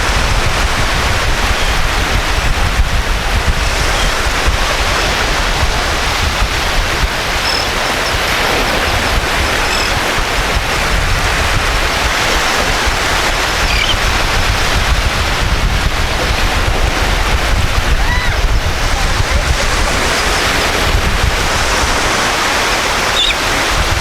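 Surf washing on a beach with wind buffeting the microphone: a steady rushing noise with a low rumble.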